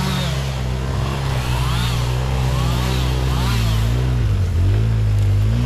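Engine of a six-wheeled Polaris Big Boss ATV running as it drives, with a higher wavering whine above the engine note; the engine speed shifts about four seconds in.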